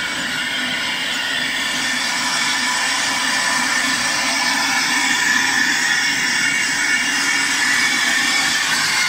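Glass-jar filling and capping line running: conveyor chains carrying filled jars into a capping machine, a steady dense clatter and hiss.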